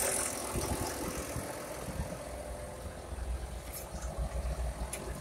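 Caterpillar D6 dozer's diesel engine idling steadily, with a couple of light clicks near the end.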